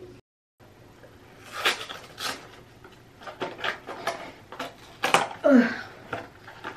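Cardboard test-kit box being opened by hand: a series of sharp, irregular rips and crinkles of card and wrapping.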